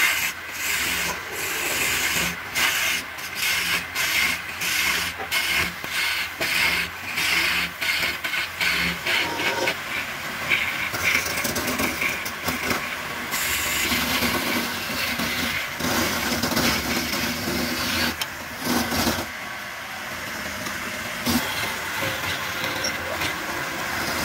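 Wood lathe spinning a pale wooden cylinder while a hand-held chisel cuts it: a rasping hiss of the tool on the turning wood, in short repeated passes that start and stop for the first ten seconds, then steadier as the cut runs on.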